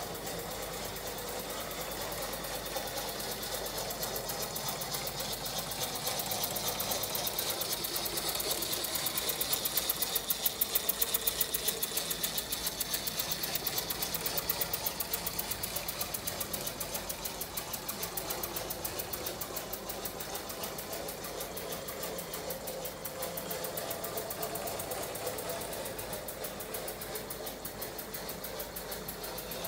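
Mamod Meccano live steam engine running a Meccano-built O gauge locomotive: a rapid, even mechanical clatter over a hiss, loudest around ten seconds in.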